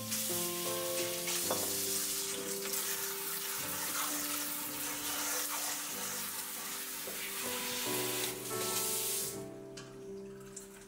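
Kitchen tap spraying water over strawberries in a stainless steel colander, a steady hiss that stops about nine seconds in.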